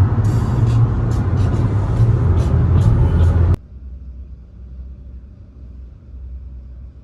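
Loud, steady car noise with scattered clicks, which cuts off suddenly about three and a half seconds in, leaving a faint low rumble.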